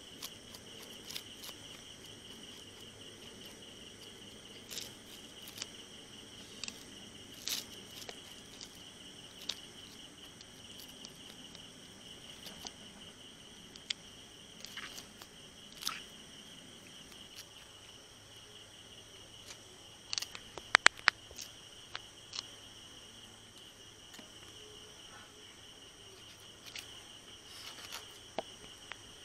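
Steady high-pitched chorus of crickets or similar insects, with scattered light clicks and taps and a quick run of sharp clicks about 21 seconds in.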